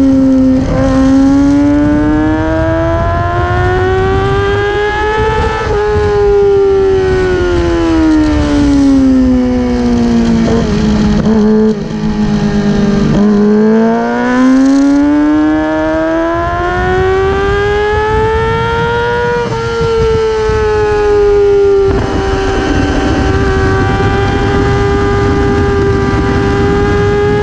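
Racing motorcycle engine heard from on board at track speed, its pitch climbing and falling with the throttle through the corners and holding steady near the end, over a low wind rumble on the microphone.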